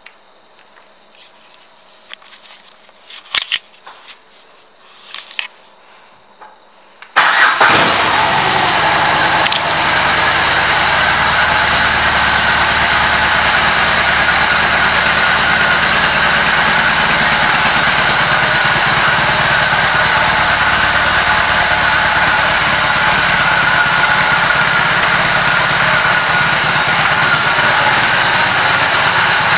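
BMW R 18's 1,802 cc boxer twin starts about seven seconds in with a sudden loud burst, then settles into a steady idle. Before it, a few faint light clicks.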